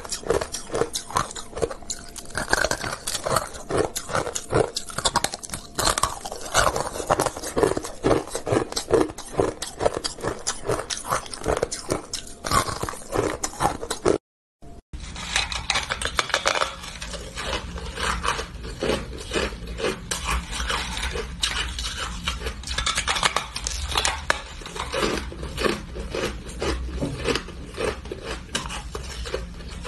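A person biting and chewing hard moulded ice, with dense, irregular crunching and crackling. The sound drops out briefly about halfway through, then the crunching carries on.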